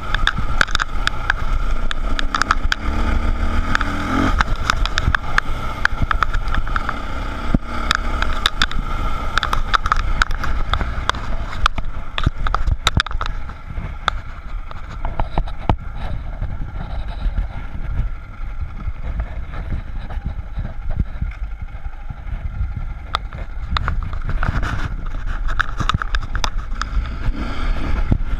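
Dirt bike engine running, heard from a camera mounted on the bike, with wind noise and sharp clatters from stones and the bike over rough trail. It goes quieter with fewer clatters in the middle as the bike slows, then picks up again near the end.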